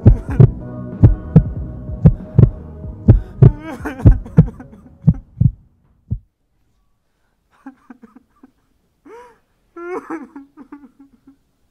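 A heartbeat sound effect, deep thumps a little under twice a second over a steady low hum, cutting off about six seconds in. After a short silence, faint voice-like sounds follow.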